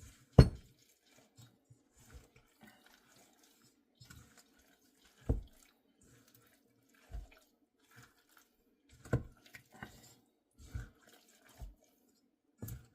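Pickle dip being stirred in a bowl: wet squelching with scattered soft knocks, the loudest one just after the start.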